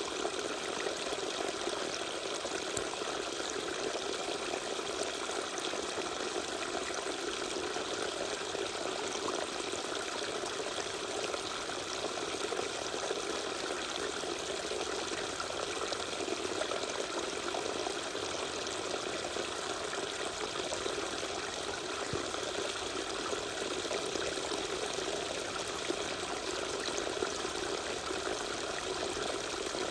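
Small waterfall, water pouring and splashing in a steady, unbroken rush.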